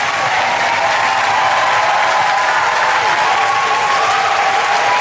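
Large crowd cheering and applauding steadily, with long held shouts riding above the clapping.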